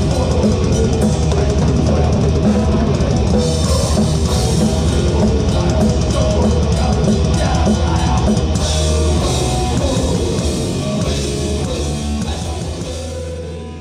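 Live heavy metal band heard from right beside the drum kit: fast drumming under distorted electric guitars. About nine seconds in the playing settles into a held, ringing final chord with cymbal wash, which fades out near the end.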